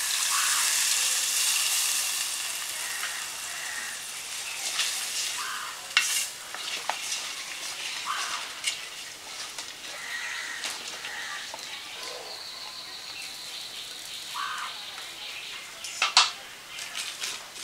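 Water poured into a hot metal pot of frying fish and taro hisses and sizzles loudly, then dies down to a bubbling simmer after about two seconds. A metal spatula stirs the curry, with a few sharp knocks against the pot.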